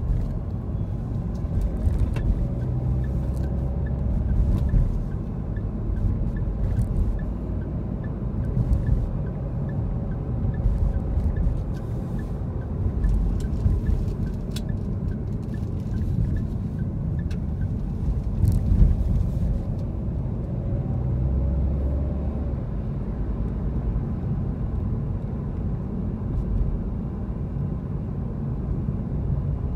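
Car driving in city traffic, heard from inside the cabin: a steady low rumble of engine and tyre noise. For much of the first half a light, regular ticking runs under it, and a few sharp clicks come through.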